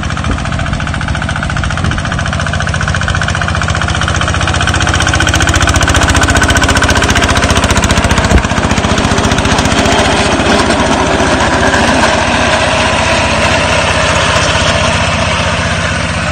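Small Thai-built tractor's engine running steadily under load as it drives its rear-mounted rotary slasher through thick, tall grass. The sound grows louder as the tractor passes close, peaking around the middle, and a single sharp click comes about eight seconds in.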